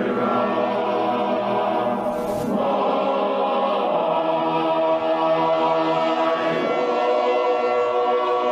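A choir singing slowly in long held chords, with a brief break about two seconds in.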